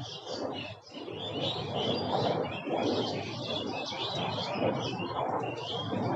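A dense chorus of many small birds chirping and tweeting at once, with short overlapping calls, over a steady low rushing background noise.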